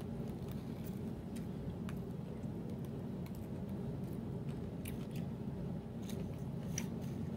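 A person chewing a mouthful of fast-food burger: scattered soft mouth clicks over a steady low hum.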